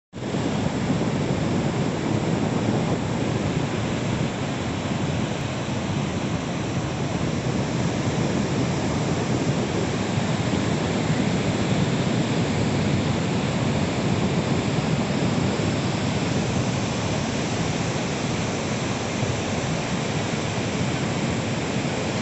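Ocean surf breaking and washing onto a beach: a steady rushing noise with no pauses.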